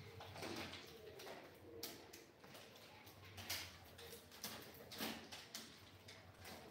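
Faint, scattered knocks and clicks from a wall-mounted flat-screen TV being handled and shifted on its mount, over a low steady hum.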